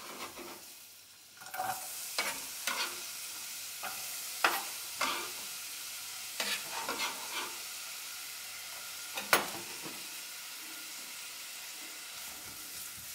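Chopped onion sizzling in hot olive oil in a frying pan, the hiss starting about a second and a half in as the onion goes into the oil. Sharp knocks and scrapes of a knife and spatula against the pan sound now and then while the onion is pushed in and stirred.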